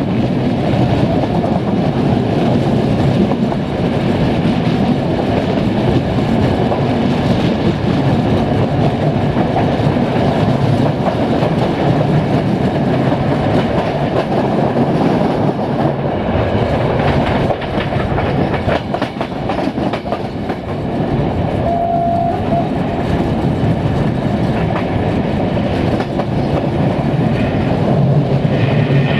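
Passenger train carriages running at speed, heard from an open carriage window: a steady rumble of wheels on the rails with clickety-clack over the rail joints.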